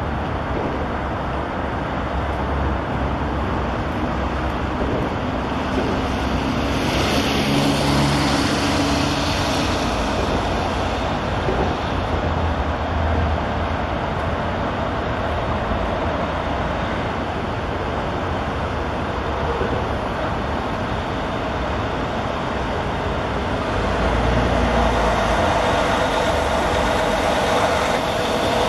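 Steady rumble of highway traffic on an elevated interchange, with a heavier vehicle passing about seven seconds in and traffic growing louder near the end.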